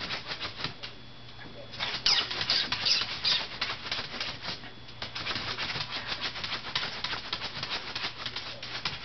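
Shih Tzu puppy scratching frantically at a wooden desktop with its front claws: rapid scraping strokes, several a second, with a brief pause about a second in and the hardest strokes a couple of seconds in.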